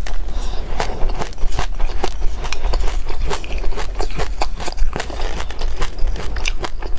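Close-up chewing of yogurt coated in mixed seeds, with many quick, irregular crunches and crackles as the seeds break. A spoon scrapes and scoops in a glass bowl near the end.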